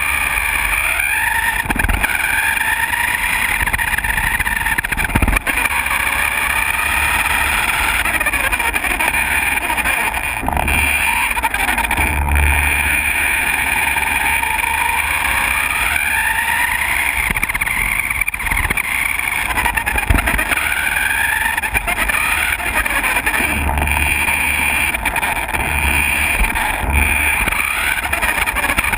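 Small electric motor and gears of a toy RC Ferrari car whining, the pitch rising and falling over and over as it speeds up and slows down. Underneath, the wheels rumble over a wooden floor, with a few short knocks.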